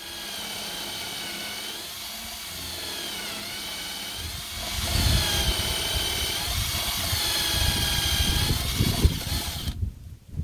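Cordless drill running and boring into a wooden board, its whine rising and falling with the trigger. A heavier rumble comes in about halfway as the bit bites into the wood, and the drill stops sharply near the end.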